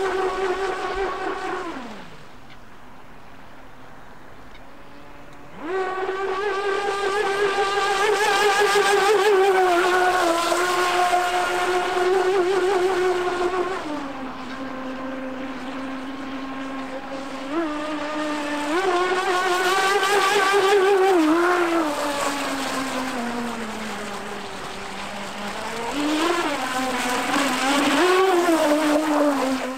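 Joysway Monster Cat RC catamaran's electric motor whining at high pitch on speed passes, over the hiss of the hull skimming the water. The whine drops away about two seconds in, comes back strongly after about five seconds, and then falls and rises several times with the throttle.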